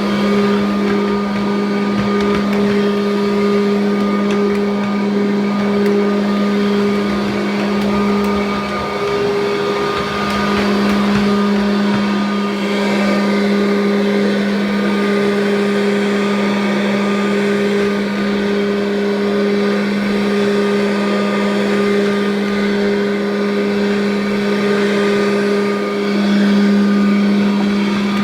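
1984 Kirby Heritage upright vacuum cleaner running steadily: a constant motor hum over the rush of air, its pitch wavering briefly about nine seconds in and again near the end.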